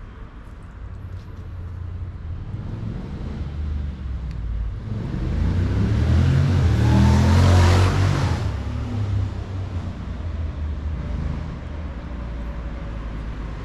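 A motor vehicle passes close by. Its engine and road noise build over several seconds, peak about seven to eight seconds in, then fall away quickly, leaving a steady low traffic hum.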